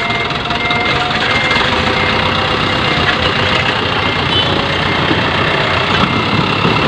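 Diesel dump truck engine running steadily as the truck backs slowly over a gravel pile. Its reversing beeper chirps repeatedly through the first half.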